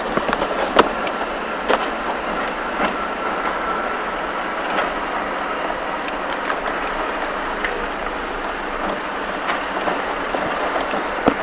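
Tyres of an off-road 4x4 rolling over dry gravel, sand and stones: a steady crunching hiss with scattered sharp clicks and knocks of stones.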